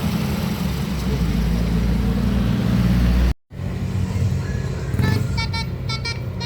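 A tour bus engine runs with a loud low rumble, then cuts off abruptly. From about five seconds in, a Basuri telolet horn plays a quick tune of short notes over the running engine.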